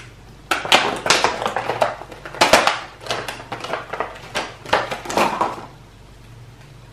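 Plastic packaging crinkling and crackling as clear plastic boxes and wrapping are opened by hand, in irregular bursts that die down about a second before the end.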